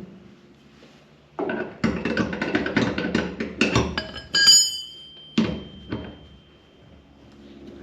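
A steel punch and pliers clinking and knocking against the metal turnbuckle hardware as they lever it round. A quick run of clicks and knocks is followed about four and a half seconds in by a sharp metal clink that rings on for about a second, then two duller knocks.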